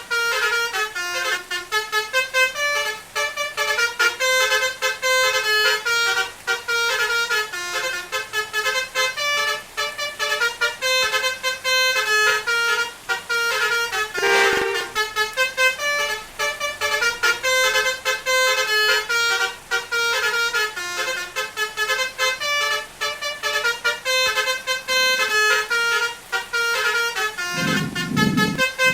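Basuri telolet horn, a multi-tone melodic vehicle horn, playing a quick tune of stepping notes without a break. A short burst of noise comes about halfway through, and a low rumble comes in near the end.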